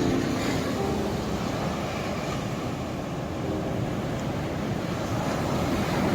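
Ocean surf washing in a continuous, even rush, with faint soft music notes over it.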